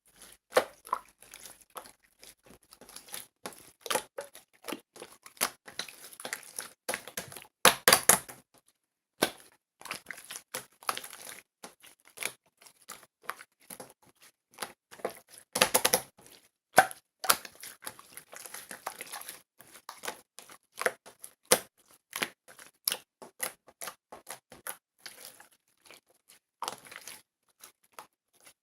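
Close handling noises: irregular taps, clicks, crinkles and tearing-like rustles, with louder rustling bursts about eight and sixteen seconds in.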